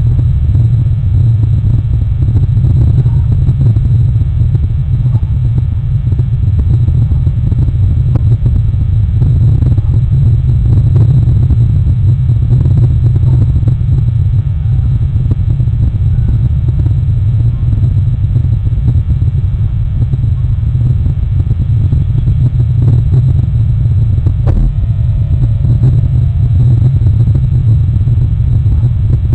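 Steady, loud low rumble throughout, with a single faint click about 24 seconds in.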